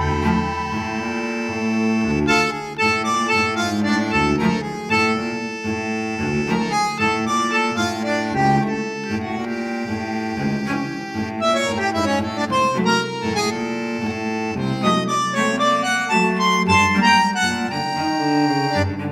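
Background music: an instrumental tune with a reedy lead melody over a held low note.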